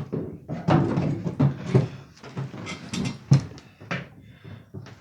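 Metal hand tool clicking and knocking against the chainsaw's screws and oil pump while a tight screw is worked loose, with one sharp knock a little past three seconds in.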